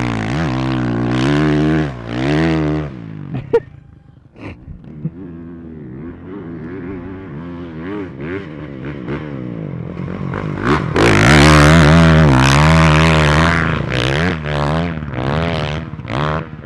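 Honda four-stroke motocross bike engine revving up and down as the rider works through sand. It is loud at first, fades a few seconds in, then builds back and is loudest past the middle.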